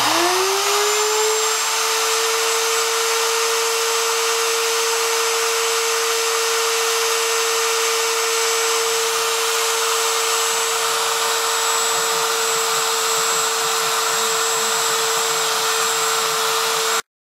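Porter-Cable 690 router motor switched on: it spins up over about two seconds to a steady high whine, then cuts off suddenly near the end.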